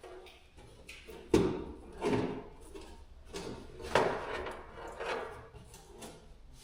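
Knocks and handling noise as the cardboard-backed firewall sound-deadening pad is folded and pressed into place against a Jeep's metal bulkhead. About four sharper knocks come a second or two apart, with rustling and scraping between them.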